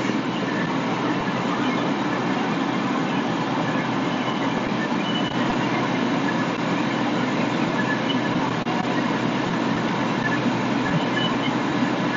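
Light rail train rolling past, a steady even noise with no breaks.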